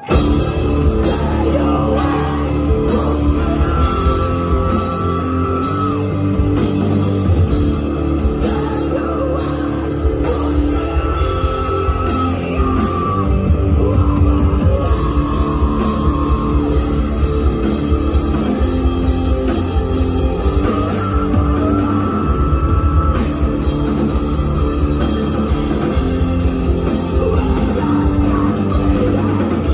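Metalcore band playing live, with distorted electric guitars, bass and drums. The full band kicks in suddenly at full volume and keeps playing loudly.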